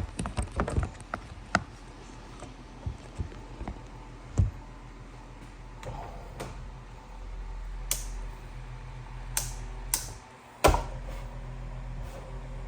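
Scattered clicks, taps and knocks of objects being handled and moved about, with a loud knock at the start and another about ten and a half seconds in, over a steady low hum.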